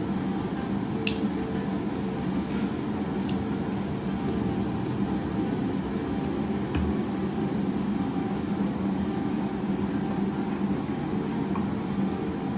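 Steady low mechanical hum of a running motor, with a few faint clicks and taps as sauce bottles are handled and a spatula works in the pan.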